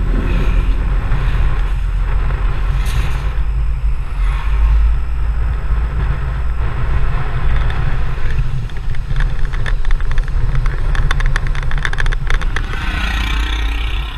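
Engine and road noise of a moving vehicle, heard as a steady low rumble with a hiss above it, and a run of crackles and rattles over the last few seconds.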